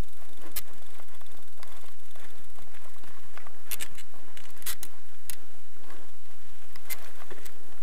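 A bicycle rattling and clicking over a rough dirt road, with sharp, irregular knocks from the bike and its camera mount over a steady low rumble.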